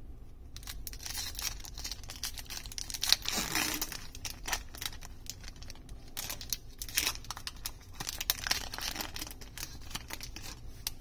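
Foil wrapper of a Magic: The Gathering booster pack crinkling and tearing as it is pulled open by hand: a string of small crackles, with a louder tear about three seconds in.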